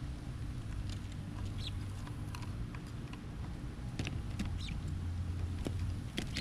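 Small birds at a backyard feeder giving short, scattered high chirps and ticks, over a steady low hum.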